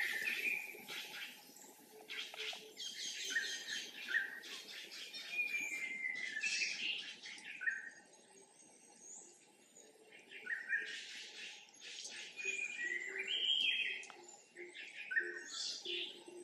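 Birds chirping, many short notes overlapping and repeating.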